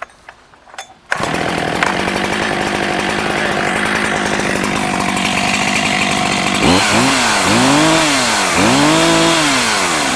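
A Holtzformer G372XT 71cc two-stroke chainsaw, a Husqvarna 372XP clone, is pull-started and catches about a second in. It runs steadily for several seconds, then is revved up and down about once a second, running a little rich in the owner's view.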